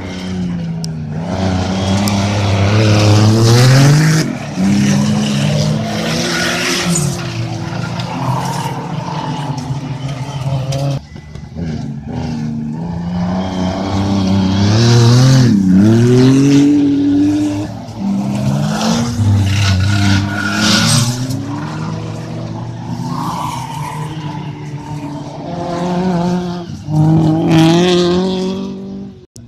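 Autocross race cars of the 2000 cc class running hard on a dirt track. The engines rev up and drop off again and again as the drivers shift and lift through the bends, with tyres scrabbling on the loose surface.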